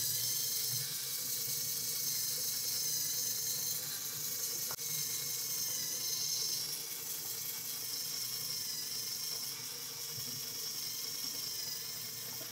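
Small LEGO electric motor whirring steadily through a 9-to-1 plastic gear reducer, driving the crank linkage that flaps a LEGO owl model's wings.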